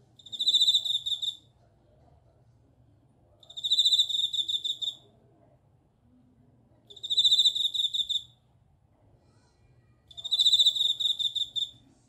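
Japanese bell cricket (suzumushi) singing: four high, trilled chirps, each about a second and a half long, coming roughly every three and a half seconds.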